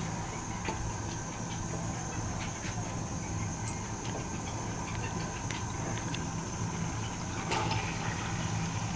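Steady low hum and hiss of a lit stove heating oil in an aluminium kadhai. About seven and a half seconds in, chopped onions are tipped into the hot oil with a brief rustle.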